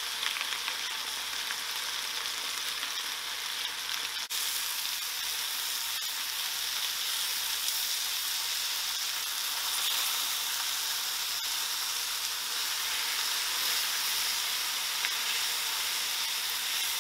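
Bell peppers, tomatoes and onions sizzling in olive oil in a stainless steel skillet over high heat, charring: a steady frying hiss.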